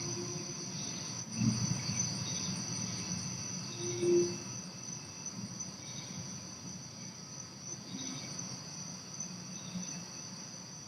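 Crickets trilling steadily at night. A brief low steady tone sounds about four seconds in, and a low rumble comes a little earlier.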